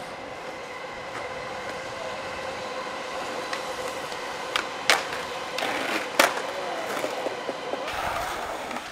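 Skateboard wheels rolling on concrete, the rolling noise growing slowly louder, then the sharp cracks of the board popping and landing about five and six seconds in.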